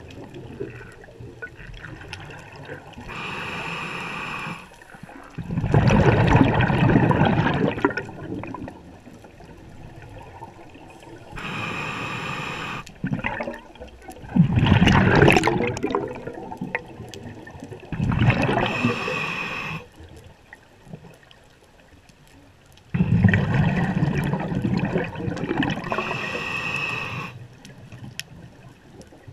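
A scuba diver breathing underwater through an open-circuit regulator: a short hissing inhalation followed by a longer, louder rush of exhaled bubbles, about four breaths in a slow, even rhythm.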